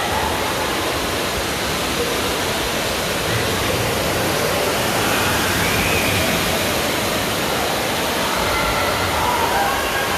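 Steady rushing noise, even and unbroken, with faint voices in the background.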